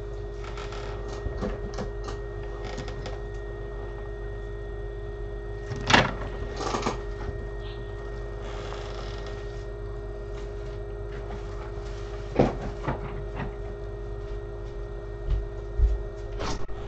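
Steady hum of electronics bench equipment, broken by a few short knocks and clicks of tools being handled. The loudest knock comes about six seconds in, with others near twelve seconds and near the end.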